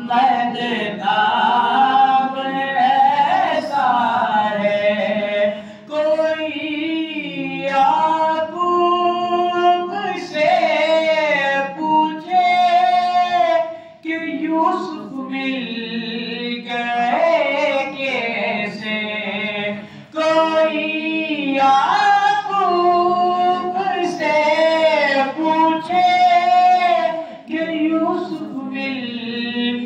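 A man singing a naat, an Urdu devotional poem in praise of the Prophet, solo and unaccompanied into a microphone, in long held, wavering notes with short pauses for breath between lines.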